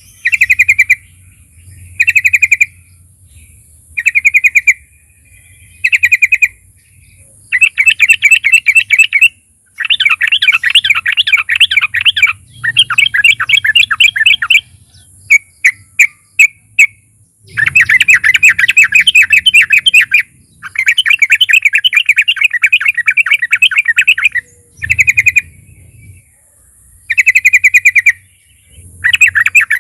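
Yellow-vented bulbul (trucukan) singing in loud bursts of rapid bubbling chatter. The phrases are short and come about every two seconds at first, then run two seconds or more. A few single sharp notes come in the middle.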